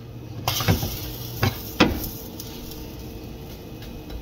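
A spatula knocks and scrapes against a nonstick frying pan while a chickpea pancake is flipped, with three sharp knocks in the first two seconds. Batter sizzles in the hot pan from about half a second in.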